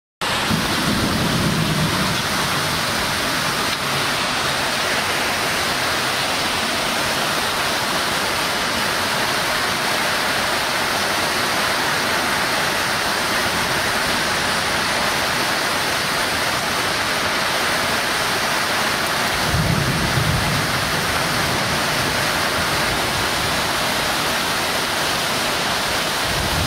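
Heavy downpour of rain, a steady hiss, with two brief low rumbles, about a second in and again around twenty seconds in.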